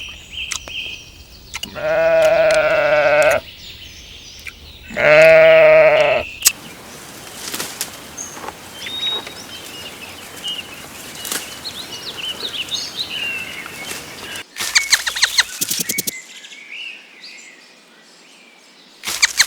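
Livestock bleating: two long, wavering bleats in the first six seconds, each about a second and a half. Then quieter outdoor background with faint chirps, and from about three-quarters of the way through, bursts of fast, sharp clicking pulses.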